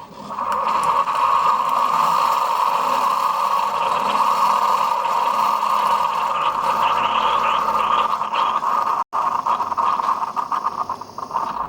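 Keurig K-Select single-serve coffee maker brewing: a loud, steady hiss and whir as its pump forces hot water through the K-Cup, becoming crackly and broken up in the last few seconds as the brew cycle finishes.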